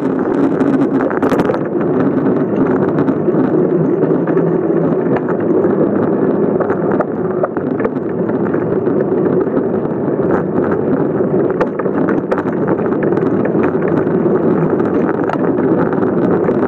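Steady rushing of wind over a phone microphone mounted on a moving bicycle, mixed with tyre noise on asphalt, with a few faint rattling clicks from the bike.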